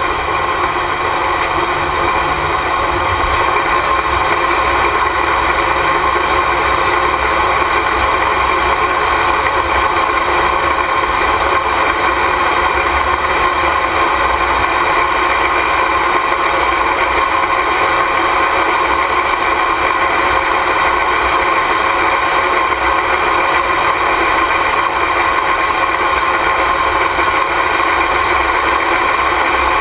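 Light Modified pulling tractor's engine idling steadily, heard close up from on board, with no revving.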